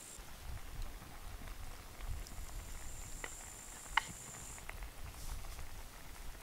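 Cream sauce simmering and sizzling in a frying pan over a log fire, with scattered small pops and one sharper pop about four seconds in.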